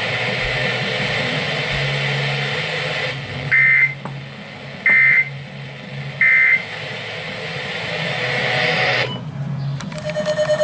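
Three short bursts of Emergency Alert System digital data tones, each about a third of a second long and about a second apart, heard over radio static and a low hum. Their brevity and triple repetition are typical of the SAME end-of-message code that closes an alert broadcast. The static swells and then cuts off near the end.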